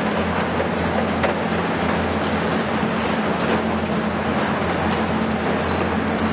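Heavy Hitachi demolition excavators running steadily, a constant low diesel hum under a wide, even rushing hiss, with a few faint knocks from the work.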